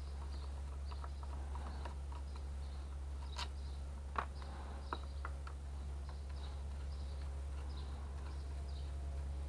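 Small clicks and taps of a screwdriver and metal parts while the motor end cover of a handheld circular saw is unscrewed, with three sharper clicks in the middle. Under them a steady low hum, with faint high chirps repeating.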